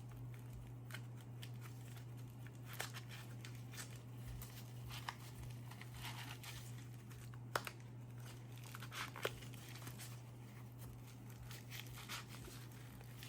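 Nylon medical pouch and tourniquet being worked together by hand: rustling fabric and scattered small clicks and taps, over a steady low hum.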